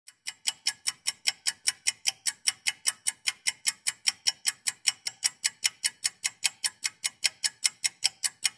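Rapid, even ticking sound effect, about five sharp ticks a second.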